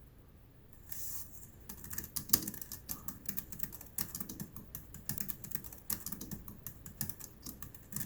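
Typing on an Inphic V780B wireless keyboard: a fast, uneven run of key clicks that starts about two seconds in, after a brief soft rustle.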